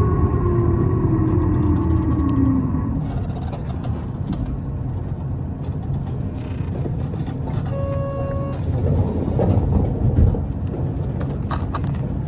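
Inside a moving Isuzu Erga city bus, one noted for an abnormal noise: a steady low engine and road rumble. Over the first three seconds a whine falls in pitch as the bus slows. A short electronic beep sounds about eight seconds in.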